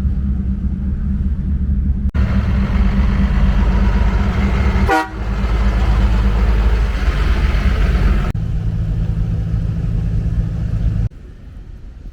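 Vehicle engines rumbling steadily across several abrupt cuts, with a brief falling pitched tone, like a horn or whistle, about five seconds in.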